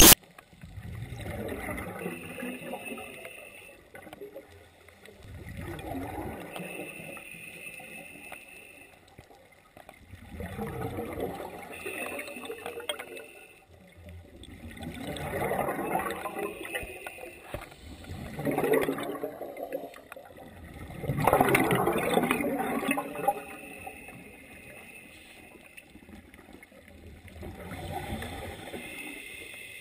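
Scuba diver breathing underwater through a regulator. Exhaled bubbles gurgle out in about seven bursts spaced every few seconds, with a thinner, higher hiss between several of them.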